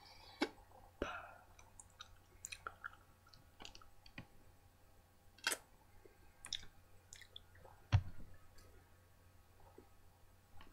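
Faint, irregular clicks and small taps from movement close to a webcam microphone, with one louder knock about eight seconds in.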